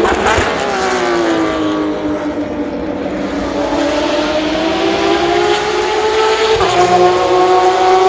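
Porsche 911 RSR's naturally aspirated flat-six race engine heard passing at a distance. The note falls for about three seconds, then climbs steadily as it accelerates, with an abrupt jump to a higher note near the end.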